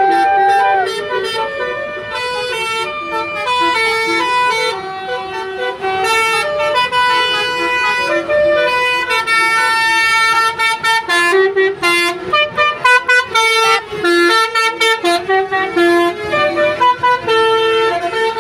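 Telolet bus horn, a set of multi-tone horns playing a melody of stepped notes. The notes turn into rapid, choppy toots in the second half.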